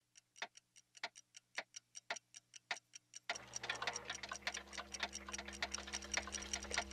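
Clock ticking quickly and evenly, several ticks a second. About three seconds in, a low steady hum swells in beneath the ticking.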